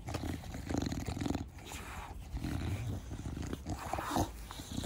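English bulldog snorting and snuffling as it breathes, a quick run of rough, rumbling breaths. This is the noisy breathing typical of a short-nosed (brachycephalic) breed.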